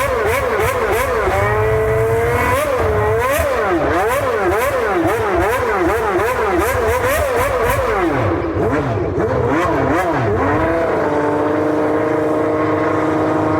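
McLaren MP4/6 Formula One car's Honda V12 being revved while stationary: quick throttle blips, the pitch rising and falling about one and a half times a second. About eight seconds in it drops back, and from about eleven seconds it holds a steady, raised idle.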